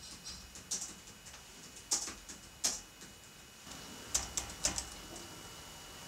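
A string of sharp, irregularly spaced clicks and ticks, several in a quick cluster about four seconds in, over a faint steady hiss.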